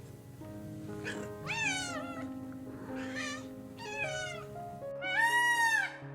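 Domestic cat meowing several times, each meow rising and then falling in pitch, over steady background music. About five seconds in comes a louder, longer call.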